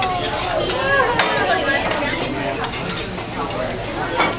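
Fried rice sizzling on a hibachi griddle while the chef works it with metal spatulas. The spatulas scrape and click repeatedly against the steel plate.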